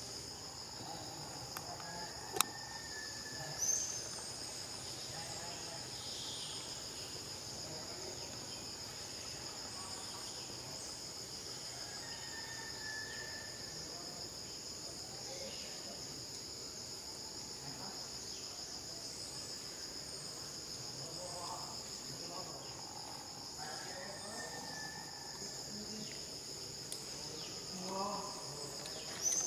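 Steady, high-pitched insect chorus of crickets or cicadas, droning without a break. A sharp click comes a couple of seconds in, and a few short chirps are heard.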